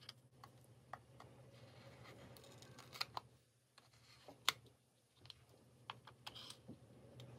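Yellow plastic opening tool prying at the edge of a WD Black P10 external drive's metal top cover, with faint scattered clicks and scrapes, the sharpest about three and four and a half seconds in.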